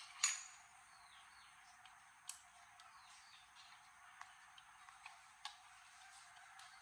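A few sharp clicks and taps spaced a couple of seconds apart, the loudest just after the start, with faint birds chirping in the background.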